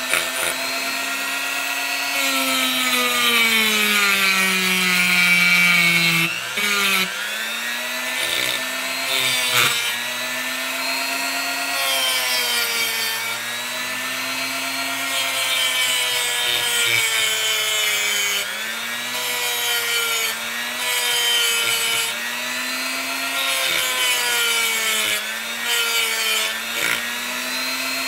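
Small hand-held rotary tool spinning a brass wire wheel, scrubbing the solder mask off a copper trace on a circuit board. The motor's whine keeps sagging and recovering in pitch as the wheel is pressed into the board, over a continuous scratchy grinding hiss.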